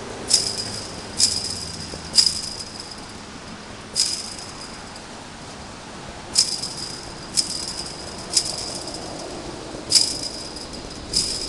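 A chain-link fence struck by kicks, rattling and ringing with a short metallic jangle at each hit: about nine sharp strikes, spaced one to two seconds apart.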